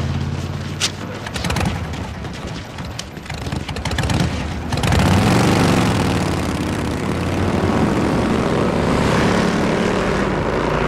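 Several motorcycle engines running together, getting louder about five seconds in.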